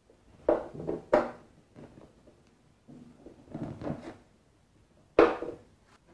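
Cable handling at the back of a dxb BL8000 power amplifier: an XLR male plug knocking against the chassis and being pushed into the channel B input socket, a string of short knocks and clicks with the sharpest one about five seconds in.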